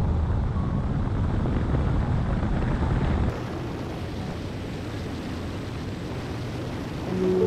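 Wind buffeting the microphone and road noise of a Lotus Elise at speed, a steady rushing with heavy low rumble. The rumble drops away abruptly about three seconds in, leaving a quieter hiss.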